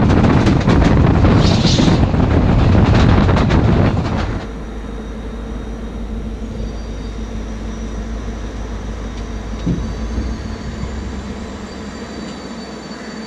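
Passenger train coach running over the rails: loud rumble and wheel clatter with rapid clicks, and a brief high wheel squeal about two seconds in. After about four seconds this drops suddenly to a much quieter steady hum with faint high whines, as at a standstill by a station platform.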